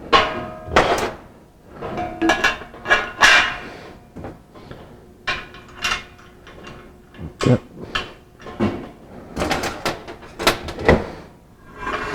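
Metal scaffold frame parts and casters knocking and clanking together as they are handled and fitted: a series of sharp metal knocks, several leaving a brief ringing tone.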